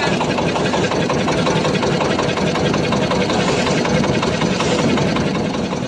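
Wooden fishing boat's inboard engine running steadily under way, a continuous rapid chugging with water and wind noise mixed in.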